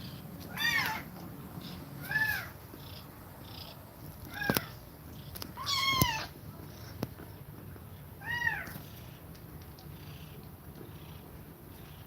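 Kittens mewing in five short, high-pitched calls, each rising then falling in pitch, over a steady low purr.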